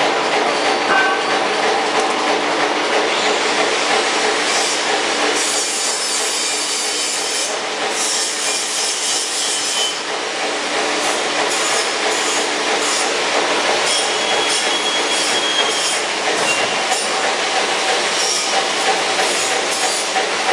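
Steady mechanical running noise: a hum of a few steady tones under a hiss, the hum weakening after about five seconds.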